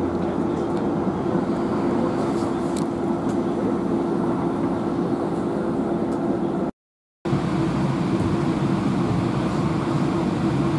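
Steady hum of an electric streetcar, with one steady droning tone over a dull rumble, heard beside the car and then from inside its cabin. It breaks off for half a second a little past the middle.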